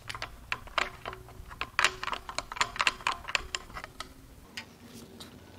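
Irregular light metallic clicks and taps of hand tools on engine parts as the crankshaft pulley of an SR20DET engine is worked off, thinning out after about four seconds.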